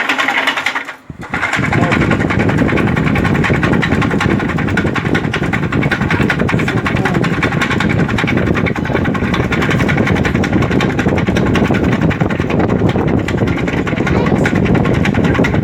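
Consul split air conditioner's indoor blower wheel running on turbo with a loud, continuous mechanical racket, after a brief drop about a second in. The wheel is loose on its shaft because its hub is cracked, so it knocks as it spins.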